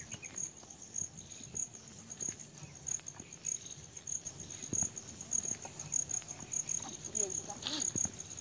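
Insects calling: a steady high-pitched pulsing trill that runs on without a break.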